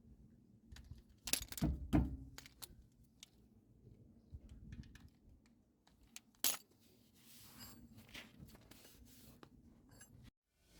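Metal tools and parts clinking and knocking during hands-on work on a car's wheel hub. A cluster of sharper knocks comes about one and a half to two seconds in, and one more about six and a half seconds in.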